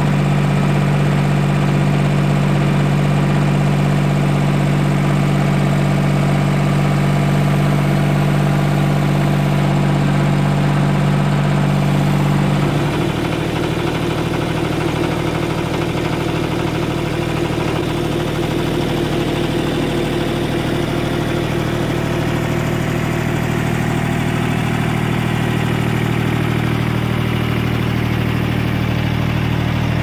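Gehl 1620 mini skid steer's Isuzu diesel engine running steadily. About 13 seconds in, its note changes and the level drops slightly as the engine settles to a lower speed.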